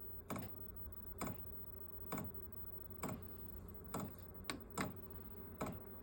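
Fuel dosing pump of a VEVOR 12V 8kW diesel air heater ticking roughly once a second over a faint low hum, as it primes and pumps fuel at startup.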